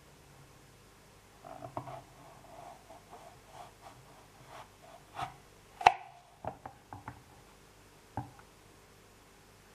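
A knife cutting through thin slices of green apple and tapping on a wooden cutting board: a run of small clicks and knocks, the sharpest a little past the middle, followed by a few quicker knocks.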